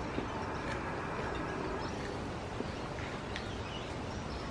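Backyard outdoor ambience: a steady background hiss with a few faint bird chirps and a few light clicks.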